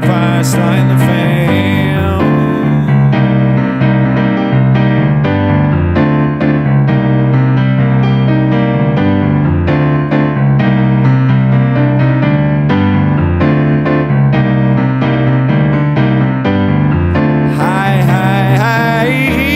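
Live electric keyboard playing an instrumental stretch of an old-school funk groove: chords over a steady, repeating bass line. A higher line with bending pitch comes in near the end.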